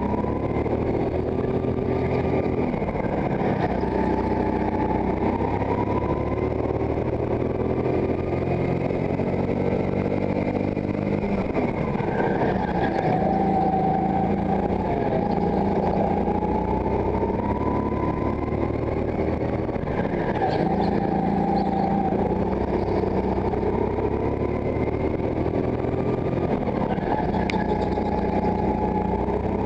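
Go-kart engine heard on board, revving up along the straights and dropping back for the corners, over and over through a lap.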